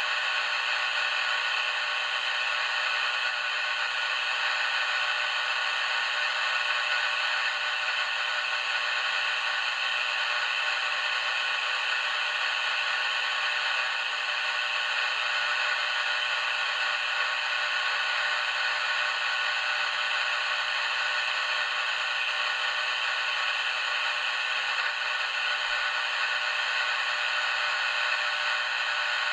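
Steady static hiss from a CB radio receiver switched to upper sideband, with no voice coming through. A few faint steady tones sit inside the hiss.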